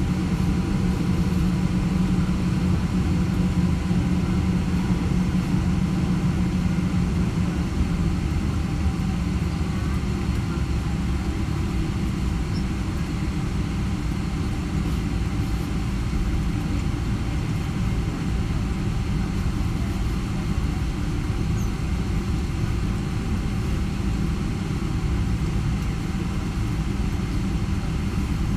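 Steady cabin noise of a Boeing 777-300 taxiing, its jet engines running at low taxi power with a constant rumble and hiss. A low hum in the noise eases after about eight seconds.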